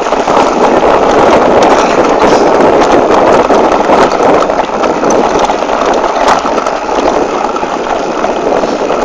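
Mountain bike rolling fast over a rough dirt trail: steady tyre and gravel noise with a constant rattle of small knocks and clicks from the bike.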